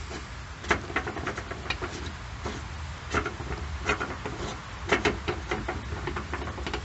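Faint, irregular small clicks and ticks over a low steady hum, as the fuel filter/water separator housing cap on a 2.8L Duramax diesel is unscrewed by hand.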